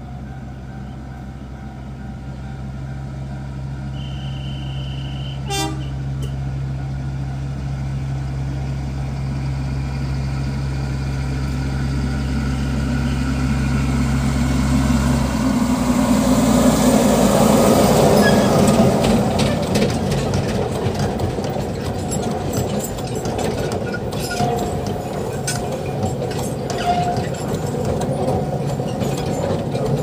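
A loaded sugarcane train on a narrow-gauge sugar railway crossing a road: a short high toot about four seconds in, the passing locomotive loudest about halfway through, then the heavy cane wagons rolling by with a steady rumble and clicking over the rail joints.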